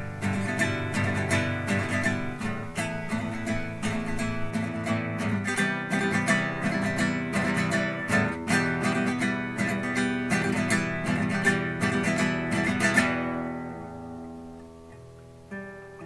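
Background music: acoustic guitar strumming chords, fading out about thirteen seconds in before softer guitar picks up again near the end.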